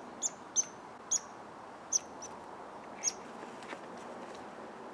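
A squirrel up the tree scolding with sharp, high-pitched chirps, about half a dozen at irregular intervals, each short and dropping slightly in pitch.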